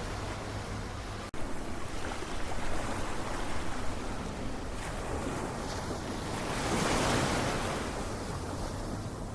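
Ocean surf: waves washing in steadily, with one wave swelling to its loudest about seven seconds in. The sound cuts out for an instant just after a second in, then comes back louder.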